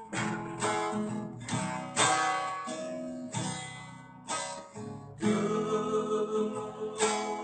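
Acoustic guitar strumming chords in a pause between the sung lines of a song, in strokes about every half second.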